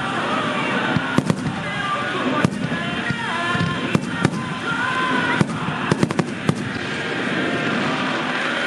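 Fireworks shells bursting overhead in quick succession: about a dozen sharp bangs, some in close pairs and clusters, which stop about seven seconds in.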